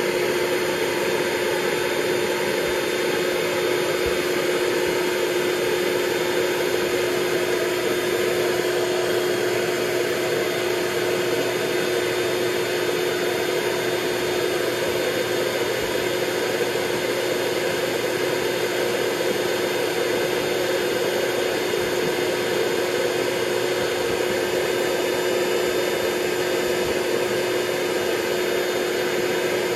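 Intex Dura-Beam airbed's built-in electric air pump running steadily, blowing air into the mattress as it inflates. An even rushing hum with one constant tone throughout.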